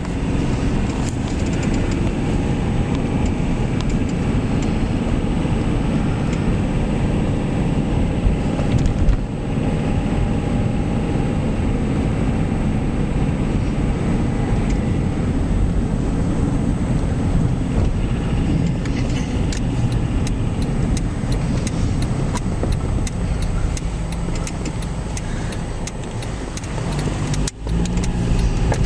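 A car driving, with steady engine and road noise. The noise dips briefly near the end.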